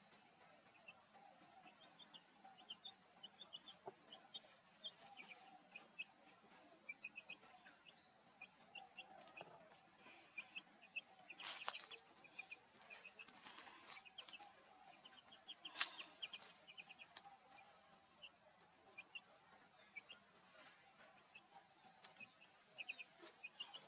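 Faint outdoor ambience of birds chirping in many quick, short notes, with a few brief rustling knocks near the middle, the loudest about two-thirds of the way through. A thin, steady high tone sets in after that and continues.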